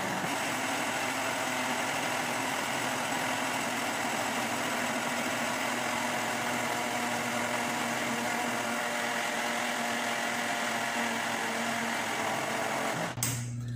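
Countertop blender motor running steadily, emulsifying corn, milk and oil into a thickened homemade mayonnaise while oil is drizzled in through the hole in the lid. The motor switches off abruptly near the end.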